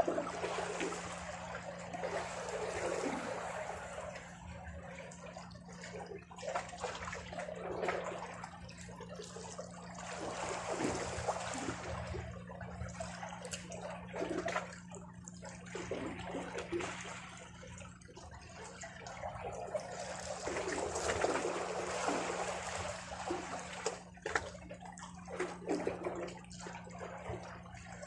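Small sea waves washing and gurgling among shoreline rocks, swelling and ebbing every few seconds with brief splashes. A steady low hum runs underneath.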